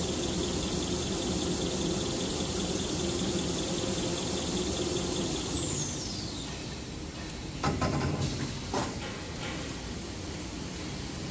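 XY-TQ-B toilet paper rewinding machine running steadily with a high whine. About halfway through it winds down, the whine falling in pitch as it slows, and a few sharp knocks follow as the finished paper log is discharged onto the outfeed table.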